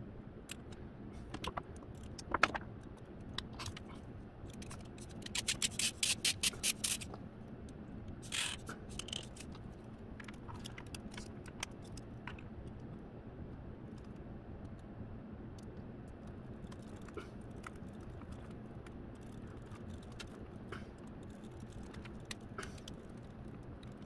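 Hands fitting a servo and plastic shoulder brackets of a robot dog together with small screws and a hex key: scattered light clicks and scrapes, with a quick run of about a dozen sharp clicks about five seconds in, over a faint steady hum.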